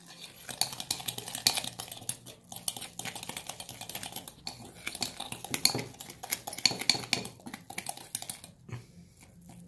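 Hands kneading and squeezing a damp mix of sand, cornstarch and dish soap in a bowl: a dense, irregular run of small gritty clicks and scrapes that eases off near the end.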